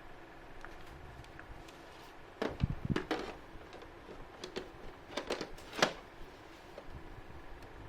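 Handling noises: two clusters of sharp clicks and knocks, about two and a half seconds in and again around five to six seconds in, over a faint steady background hum.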